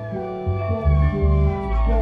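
A band jamming: guitar over a deep bass line whose notes change about every half second.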